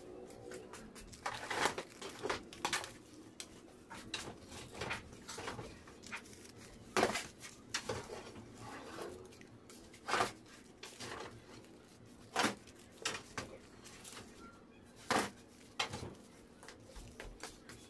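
A knife blade scraping and clicking against a metal baking tray as sliced macaroon squares are lifted out, with a sharp click every few seconds and the soft handling of paper baking cups in between.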